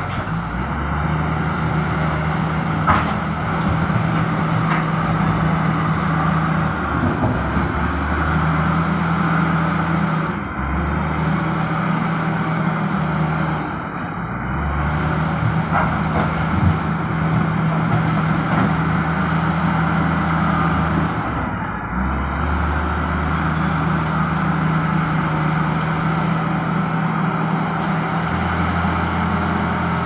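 Diesel engine of a wheeled loader-backhoe working, running steadily with a low hum that grows and eases in stretches as the machine works, dropping back briefly a few times.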